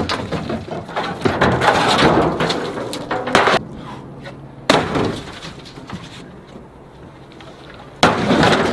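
Heavy pieces of rusty scrap iron thrown off a truck bed, crashing and clattering onto a pile of scrap metal. It comes as several separate crashes, the loudest about three and a half and five seconds in, and another near the end.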